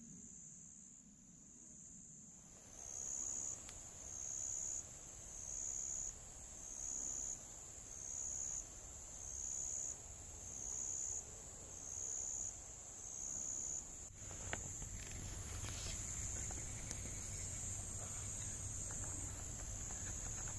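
Insects singing in a high, even drone that swells and fades in a steady pulse about once every second and a quarter, then runs on without a break for the last several seconds. A faint low rumble comes in under it in the second half.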